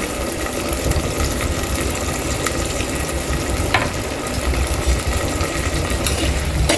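Onions, tomatoes and turmeric sizzling in hot oil in a cooking pan, steady, with a few light taps of a stirring spoon.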